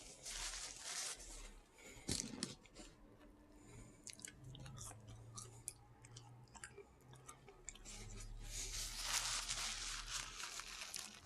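A person chewing Burger King chicken close to the microphone, with sharp mouth clicks throughout and two longer stretches of noisy chewing, one near the start and one about nine seconds in. The eater wears dentures.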